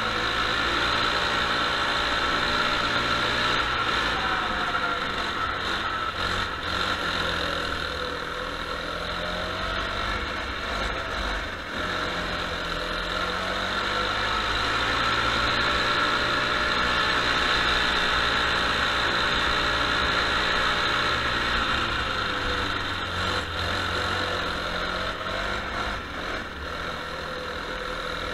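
Go-kart engine heard from on board, its pitch rising and falling several times as the throttle is opened and closed, over a steady hiss.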